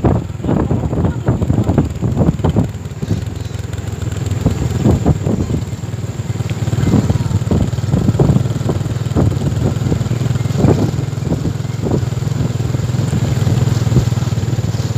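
Motorcycle engines running steadily on an unpaved dirt road, with irregular low thumps over the engine hum.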